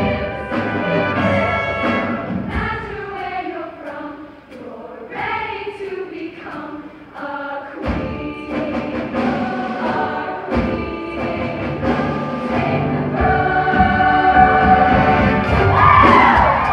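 A large choir singing with musical accompaniment in a live stage performance, heard from the audience seats of an auditorium. It dips quieter about four seconds in, then builds louder over the last few seconds.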